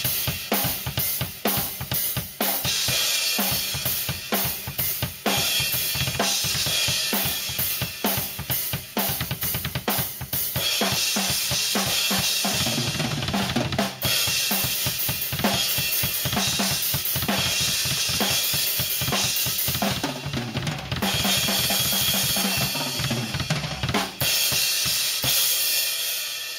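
Acoustic drum kit played hard: an improvised rock beat of kick drum, snare and crash and ride cymbals, with short breaks in the cymbal wash for fills. The playing eases off near the end as the cymbals ring out.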